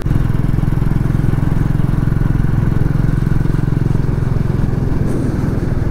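Single-cylinder Royal Enfield Classic 350 engine running steadily while the bike is ridden along, a fast, even beat of firing pulses.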